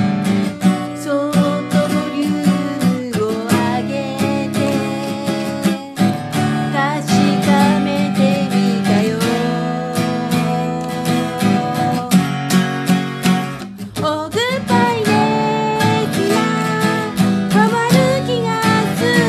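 Steel-string acoustic guitar strummed in chords while a woman sings a pop ballad over it.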